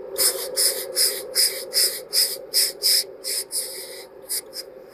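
Hand steam iron puffing short bursts of steam in a quick rhythm, about two or three hisses a second, ending in a longer hiss and two brief ones, while setting the front crease of wool trousers.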